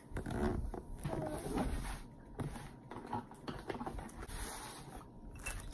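Cardboard packaging being handled: a gift box opened and its inner box slid out, with scattered rustles and scrapes.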